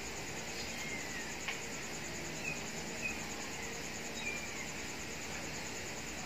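Quiet background ambience: a steady, fast-pulsing, high-pitched insect trill, with a few faint short bird-like chirps and a soft tap about one and a half seconds in.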